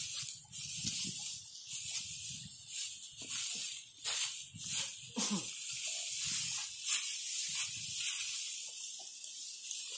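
Dry straw stalks rustling and crackling as they are handled and spread by hand into a thatch mat: an irregular dry hiss with many small crackles.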